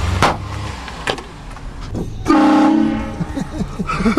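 A vehicle-mounted air train horn blasts once for about a second, a little past halfway, sounding a loud chord of several steady tones over a low vehicle rumble. Two sharp clicks come before it.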